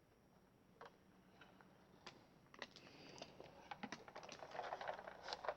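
Light plastic clicks and rattles of toy shotguns being handled, sparse at first and growing busier in the second half.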